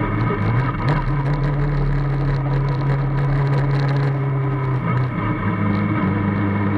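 Formula Student race car's engine running at low speed, heard from the cockpit. The revs step up a little about a second in, hold steady, then drop back near five seconds.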